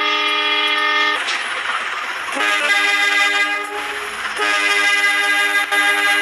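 Locomotive air horn sounding a chord in three long blasts. The first stops about a second in, the second runs from about two and a half to nearly four seconds, and the third starts about four and a half seconds in and is held. A rushing noise fills the gaps between the blasts.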